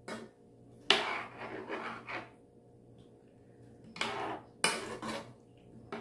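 Metal spoon stirring chicken and sauce in a wok, scraping and clinking against the pan in two spells, with a sharp clink about a second in and another near the fifth second.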